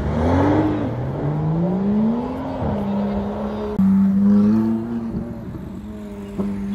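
Sports car engine accelerating, its pitch climbing steeply, with a gear change about two and a half seconds in. Then a Ferrari V8 holds a steady, even note as it pulls away.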